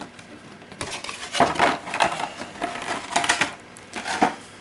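Clear plastic packaging being handled on a table: bursts of crinkling and clattering plastic, then a couple of sharp knocks a little before the end.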